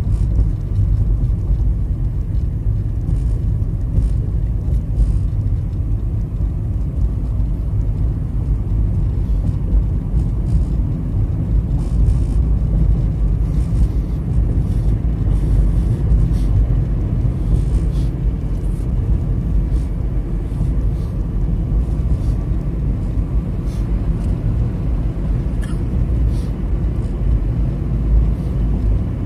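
A car driving along, heard from inside the cabin: a steady low rumble of engine and road noise.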